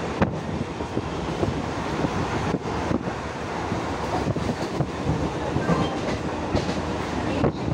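An ICF Medha-rake electric multiple unit local train running along the track: a steady rumble with irregular clattering knocks from the wheels over the rails.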